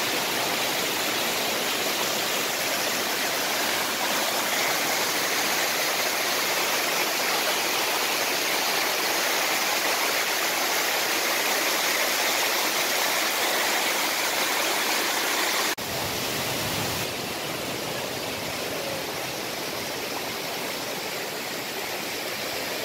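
Water cascading over rocks, a steady rushing hiss. About sixteen seconds in it cuts to a slightly quieter, duller rush of running water.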